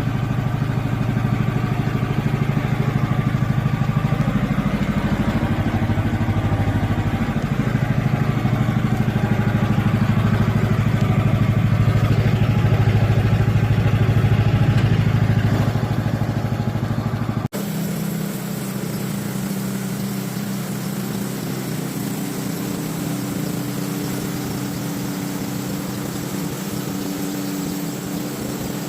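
Sawmill running steadily, a loud machine drone with a few slight shifts in pitch. About two-thirds through it cuts off suddenly and a different, slightly quieter steady machine sound takes over.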